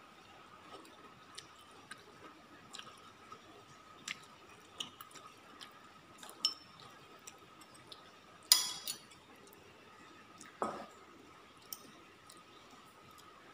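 Metal spoon scraping and tapping in a ceramic bowl of rice as food is scooped and mixed: scattered small clicks, then two louder ringing clinks past the middle. A faint steady high hum runs underneath.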